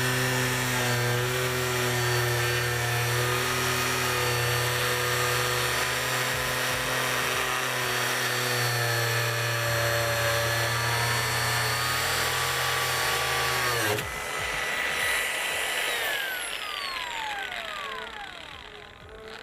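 Makita GA006G XGT 40V cordless angle grinder running steadily with a high whine, then about two-thirds in it changes abruptly and its pitch falls as the motor winds down.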